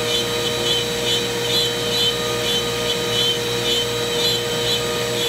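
CNC router spindle running steadily as its bit cuts a thin wooden sheet, with dust extraction drawing through the hose at the spindle head; a higher warbling note pulses about twice a second over the steady tones.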